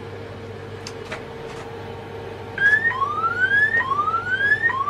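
Electronic alarm in a train driving cab, a rising whoop repeated about once a second, coming in about two and a half seconds in. Before it there is a steady electrical hum and a few sharp clicks.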